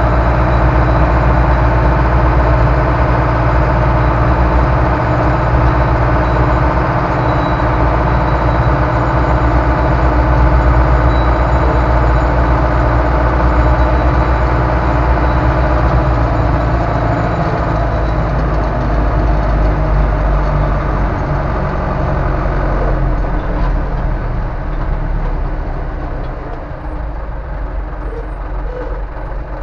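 Ursus C-385 tractor's four-cylinder diesel engine running steadily as the tractor drives, heard from inside the cab. The engine note drops about two-thirds of the way through and gets quieter near the end.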